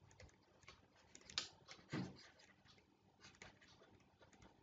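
Faint, scattered taps and clicks of a stylus writing on a pen tablet, a few sharp ticks with two slightly louder ones near the middle.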